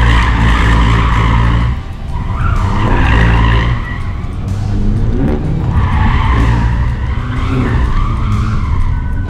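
Hyundai i30N Performance's 2.0-litre turbo engine working hard while its front tyres squeal through tight turns around cones. The tyre squeal comes and goes in waves, and the engine note rises and falls, with a brief drop about two seconds in.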